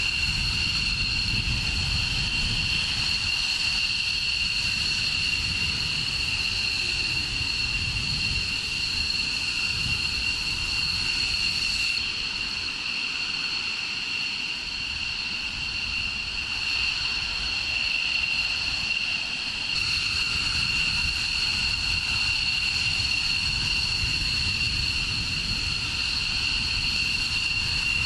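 F-22 Raptor's jet engines running at idle on the ground: a steady high-pitched turbine whine over a low rumble.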